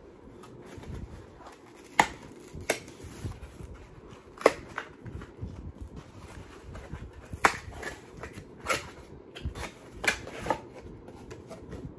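Handling noises from packaging and candles being moved: a low rustling with about seven sharp clicks and knocks scattered through it, the loudest about two seconds and four and a half seconds in.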